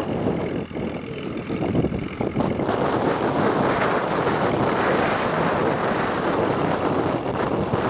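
Massey Harris 44 tractor engine running, with wind on the microphone; the sound grows louder about two and a half seconds in.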